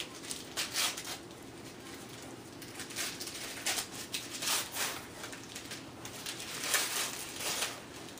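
Gift wrapping crinkling and rustling in irregular short bursts as a present is unwrapped by hand.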